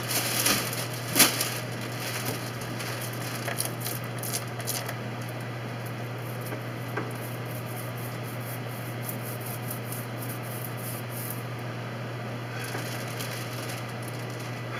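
Steady low hum under a faint hiss, with a few light knocks and taps in the first couple of seconds.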